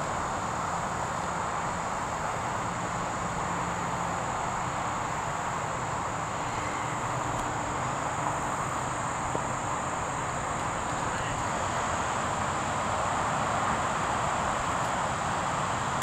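Steady outdoor ambience: a continuous high-pitched insect chorus over an even background hiss.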